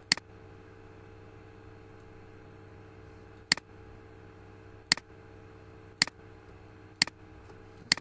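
Computer mouse clicks: one, then after a gap of about three seconds five more at roughly one-second intervals. A steady electrical hum runs underneath.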